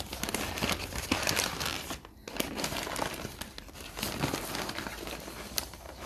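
Brown kraft paper wrapping crinkling and rustling as it is handled and unwrapped from around a potted plant, in irregular crackling bursts with a brief lull about two seconds in.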